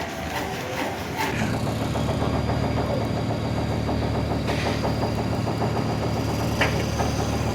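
Heavy diesel engine running steadily, getting louder and fuller about a second in.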